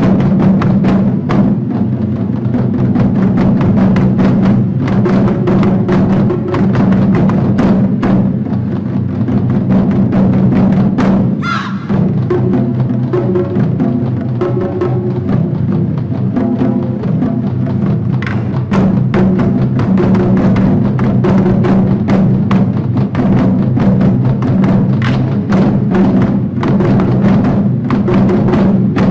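Japanese taiko drums struck over a recorded backing song, with many sharp hits and clacks on top of the steady music.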